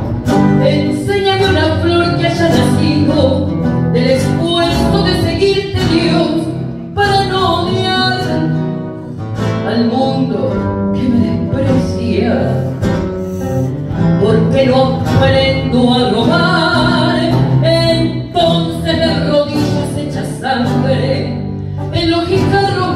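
A woman singing a tango through a microphone, with instrumental backing.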